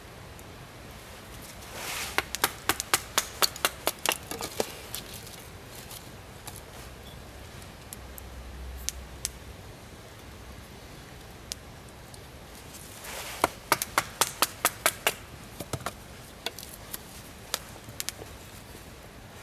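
A bushcraft knife blade working a dry wooden stick, in two runs of quick, sharp cutting strokes about four to five a second, one starting about two seconds in and another about thirteen seconds in.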